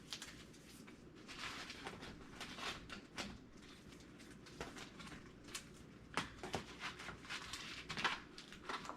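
Plastic rustling and light taps of bagged comic books being handled and set down, in short scattered bursts.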